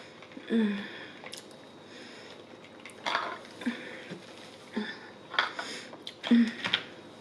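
King crab legs' shells cracked and snapped apart by hand, a sharp crack several times, with mouth sounds from eating in between.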